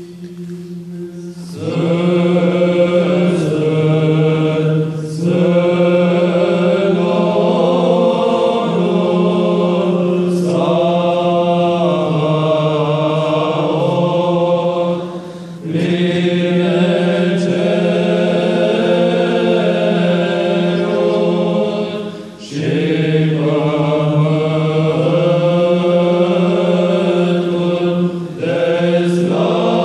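A church choir singing Orthodox liturgical responses in Byzantine (psaltic) chant, with a loud, steady ison drone held by the ison singers close at hand under the melody. The melodic phrases break off briefly every few seconds while the drone carries on.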